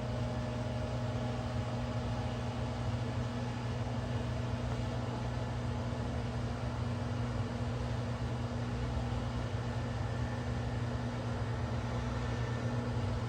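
Samsung front-load washing machine running with a steady motor hum.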